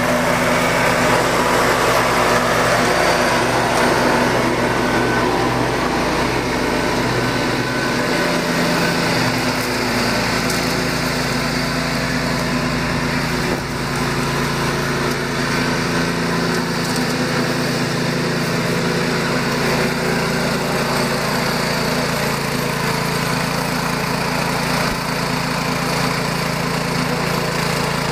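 Cub Cadet 1250 garden tractor's engine running steadily as the tractor drives across a lawn, with a slight shift in its note about a third of the way in.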